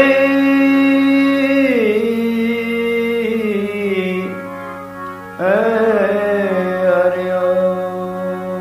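Devotional bhajan: a singer holds long, wavering notes over a steady harmonium drone, with a fresh phrase starting about five seconds in.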